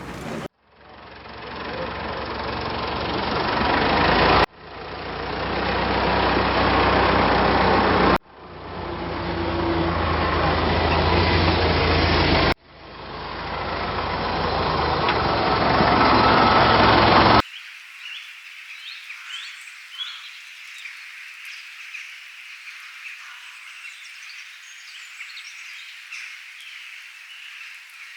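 A heavy vehicle engine sound effect played four times in a row: each time it swells and then cuts off abruptly. About two-thirds of the way in it gives way to a quieter bed of high chirping, like birds or frogs outdoors.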